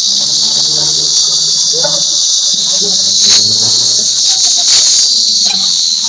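Hyundai Venue CRDi turbo-diesel engine being revved, with a loud, steady high-pitched hissing screech over the engine's running. It is the metallic noise on acceleration that brought the car in, which the mechanic suspects comes from the turbo.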